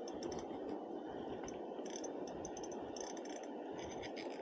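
Steady rush of the river current, with light, scattered clicking and rattling from the spinning reel and tackle while a hooked trout is played.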